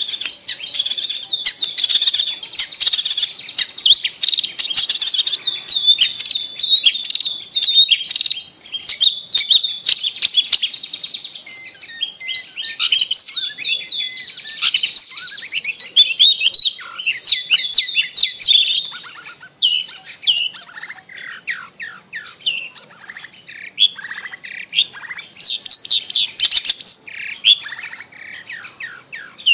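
Long-tailed shrike (cendet) song: a rapid, nonstop chatter of varied high-pitched notes, dense for most of the time, then thinning to quieter, broken phrases about two-thirds of the way through, with a brief busier stretch near the end. It is the kind of recording played as a lure to prompt a silent caged cendet to start singing.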